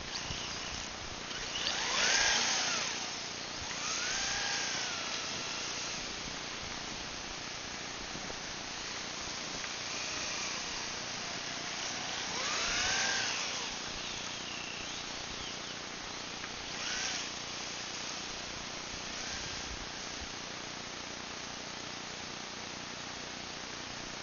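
Electric ducted-fan model jet on a three-cell LiPo flying by, a high whine that swells and arcs up and down in pitch several times, loudest about two seconds in and again around thirteen seconds, over a steady hiss.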